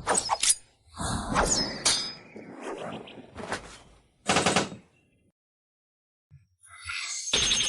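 Shuriken sound effects: throwing stars whooshing and striking, played as several separate short effects, each a quick run of sharp hits. After a pause of over a second, a rising whoosh swells into a dense, fast rattle of strikes near the end.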